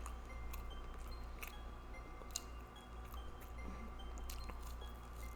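A person chewing a mouthful of food close to the microphone, with scattered faint clicks from the mouth, over a steady low hum.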